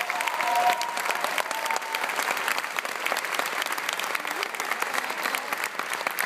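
Audience applauding after a live performance: dense, steady clapping from a large crowd.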